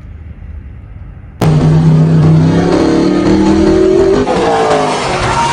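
Race car engine sound effect starting abruptly about a second and a half in and accelerating, its pitch climbing steadily, with a second, higher climbing engine note joining near the end.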